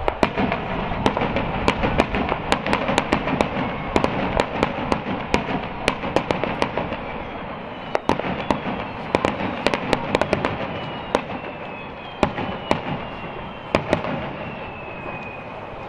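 Aerial fireworks going off: many sharp cracks and bangs in quick, irregular succession, thinning out over the last few seconds.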